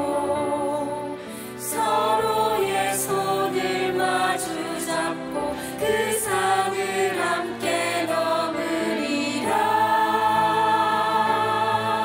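A mixed ensemble of men, women and a child sings a Korean Christmas musical number in harmony over instrumental accompaniment. About nine and a half seconds in, the voices swell into a long held chord.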